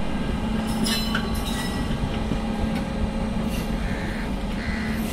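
Indian Railways WAG-9 electric locomotive hauling NMG car-carrier coaches on the move, with wheels rumbling on the rails and a steady low hum. A few short, high squeaks come about a second in.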